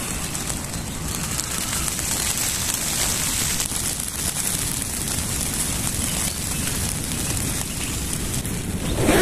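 Steady rain falling on a tent, many fine drop taps over a constant hiss.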